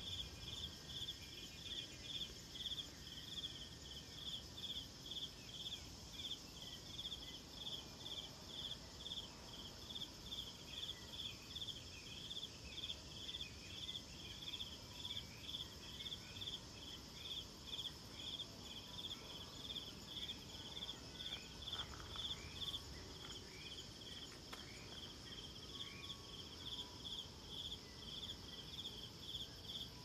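Insects chirping: a steady run of short pulsed chirps, about two or three a second, over a continuous high-pitched buzz.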